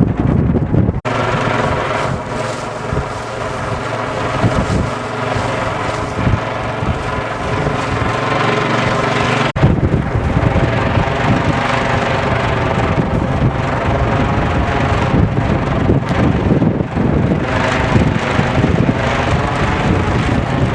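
Tsugaru kite flying in strong wind: a steady, buzzing drone of several even tones over gusty wind buffeting the microphone. The sound cuts off abruptly and resumes about a second in, and again about halfway through.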